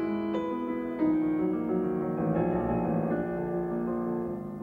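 Recorded piano music: notes and chords struck every second or so and left to ring.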